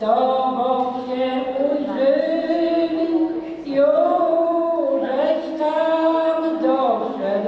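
An elderly man singing a Polish funeral song solo and unaccompanied, in long held, slowly gliding notes, with a breath between phrases about every three and a half seconds.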